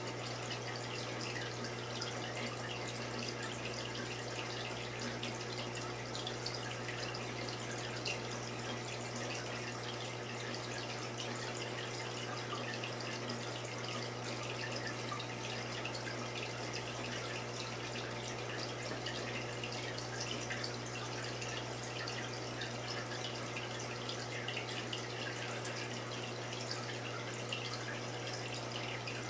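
Saltwater aquarium's water circulation trickling and bubbling steadily, with a constant low hum underneath.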